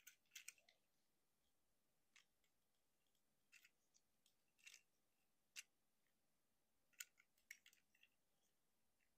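Faint, irregular clicks of a Transformers Legacy United Voyager Class Motormaster action figure's plastic parts as it is transformed by hand, with joints and panels being moved and snapped into place. A few clicks come close together near the start, then single ones follow at uneven gaps, the sharpest about five and a half and seven seconds in.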